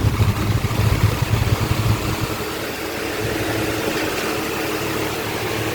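Electric table fan running, with a rapid tak-tak knocking for about the first two seconds that then settles into a steadier hum. The knocking is the sign of a loose blade cap letting the blade work loose on its shaft.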